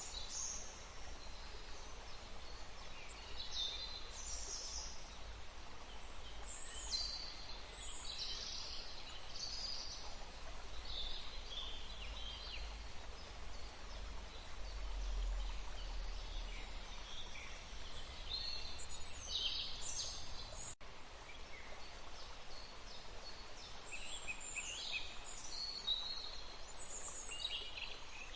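Many songbirds chirping and calling, short phrases overlapping one another, over a steady rush of running water.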